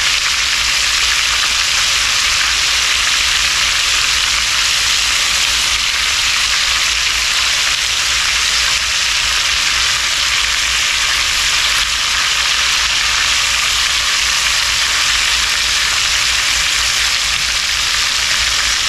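Battered chicken pieces shallow-frying in a little oil in a cast iron skillet: a steady, even sizzle.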